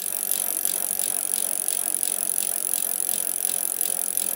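A bicycle being ridden, a steady rattle with regular ticking from the chain and freewheel at about three to four ticks a second. It starts suddenly.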